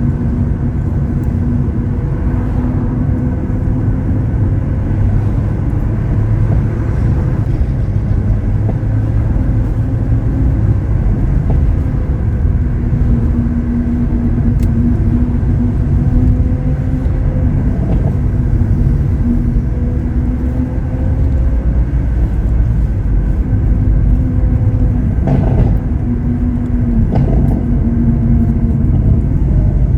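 Lamborghini Aventador SV Roadster's V12 running at a steady cruise: a low, continuous engine drone at a nearly constant pitch under road and wind rumble. A few faint clicks come near the end.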